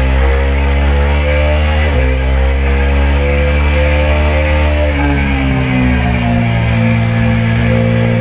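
KTM RC390's single-cylinder engine under hard acceleration: its pitch drops sharply at an upshift about two seconds in, climbs as it pulls through the next gear, then falls away a little after halfway as the throttle is closed for the next corner.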